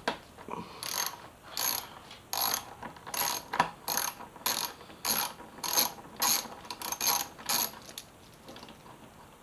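Socket ratchet with a 10mm socket clicking through about a dozen quick return strokes while backing out a bolt on a motorcycle's headlight stay bracket. The clicking stops about 8 seconds in, as the bolt comes loose.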